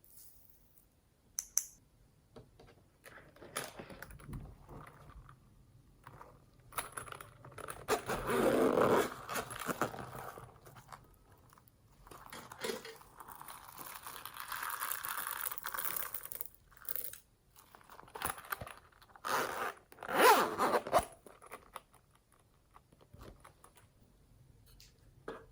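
Slime being squished, stretched and mixed by hand, making irregular sticky scraping and crunching sounds, with louder squelching stretches about eight and twenty seconds in.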